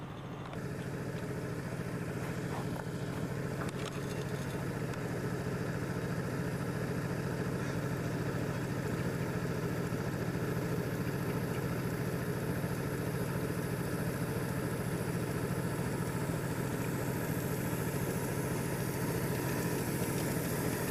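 A small engine idling steadily with a low, even hum. It grows a little louder over the first couple of seconds, then holds.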